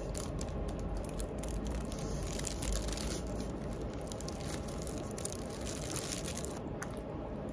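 Food wrapping crinkling and rustling as it is handled, in many small irregular crackles over a steady room background.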